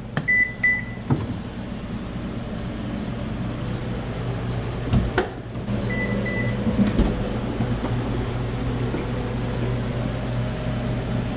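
2015 Subaru Outback power liftgate operating: its warning beeper sounds just after the start and again about six seconds in, with a knock about five seconds in. From about six seconds on, the liftgate motor and gear drive run with a steady hum as the hatch moves. There is no clicking from the drive, whose loose nut has just been tightened.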